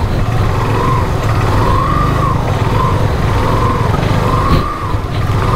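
Motorcycle engine running under way, with a steady low rumble and a whine that rises and falls repeatedly as the throttle opens and closes.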